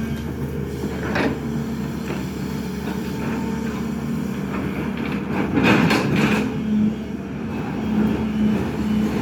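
SANY excavator's diesel engine running steadily under work, with a brief noisy surge about a second in and a louder one lasting about a second a little past the middle.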